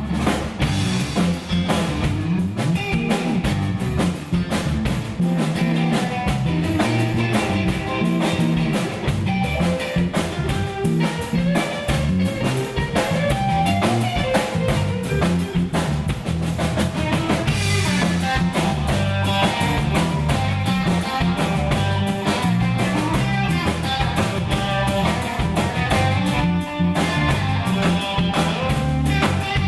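Live blues band playing an instrumental break: guitar playing a lead line over drum kit and a steady low groove.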